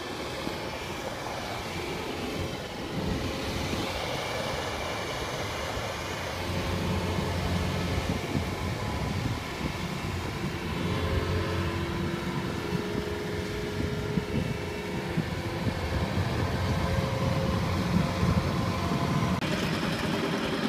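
Kubota crawler combine harvester's diesel engine running steadily under load as the machine drives. Near the end the sound changes to another engine.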